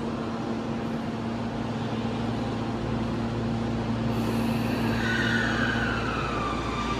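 Electric subway train pulling into an underground platform. A rumble builds, and about five seconds in a whine from its traction motors falls in pitch and then holds steady as the train brakes. A steady low hum runs underneath.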